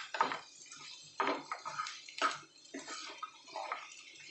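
Wooden spatula stirring and scraping chicken pieces through a thick masala in a hot non-stick pan: irregular, wet-sounding scrapes every third to half second, with the food sizzling as it fries.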